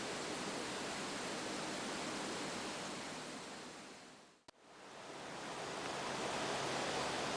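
Steady outdoor hiss of a field recording with no horn sounding. It fades away to silence about four and a half seconds in, with a small click at the lowest point, then fades back in.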